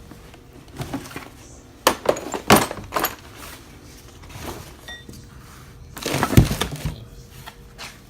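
A run of sharp clanks and knocks as car parts are moved about and handled, in two clusters: several about two to three seconds in, and a louder group around six seconds in.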